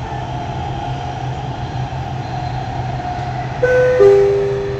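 Dubai Metro train running, heard from inside the carriage: a steady low rumble with a motor whine that sinks slightly in pitch. About three and a half seconds in, a two-note descending chime sounds over the train's announcement speakers; the second, lower note is the loudest and fades out.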